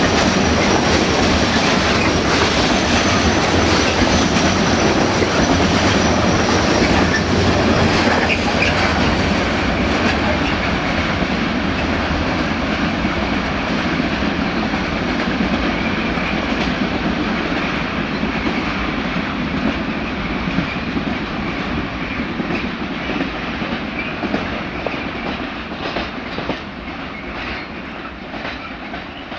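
Freight train wagons rolling past on steel wheels, clacking over the rail joints. The sound slowly fades as the train draws away.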